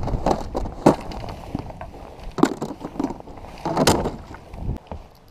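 Footsteps crunching on a gravel shoreline, with three heavier steps about a second and a half apart.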